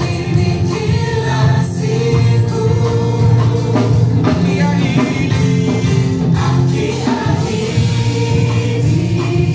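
Gospel song performed live with a choir singing over a band with heavy bass.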